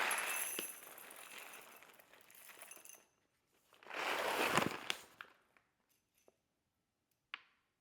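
Whole coffee beans rattling as they are poured out for weighing: a rush of beans for about three seconds, a second shorter pour about four seconds in, and a single click near the end.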